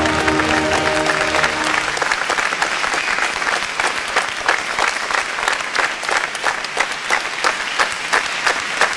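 Music that ends about two seconds in, giving way to a crowd's applause, with individual sharp hand claps standing out, more evenly spaced toward the end.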